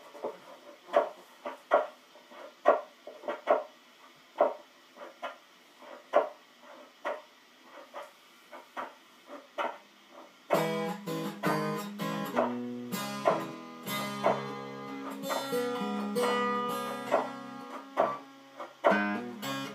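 Homemade stomp box, a box with a cheap headphone speaker soldered in as a pickup, tapped in a steady beat about twice a second. A guitar comes in over the beat about halfway through.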